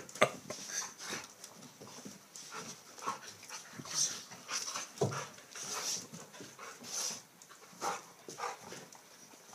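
Two dogs play-fighting: panting and mouthy wrestling noises in short irregular bursts as they tussle.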